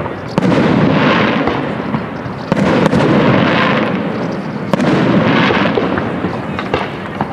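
Aerial firework shells bursting: three loud booms about two seconds apart, each followed by a long rolling echo, with a few sharp cracks in between.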